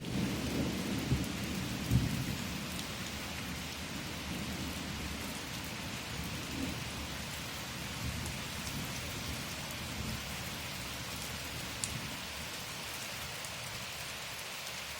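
Steady rain falling, an even hiss with scattered sharper drop hits. A low rumble of thunder sits under it in the first few seconds and fades away.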